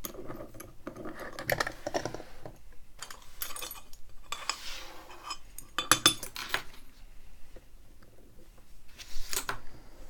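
Scattered metal clinks and knocks from handling a euro profile lock cylinder: it is loosened out of a bench vise, then set down and moved about on an aluminium tray.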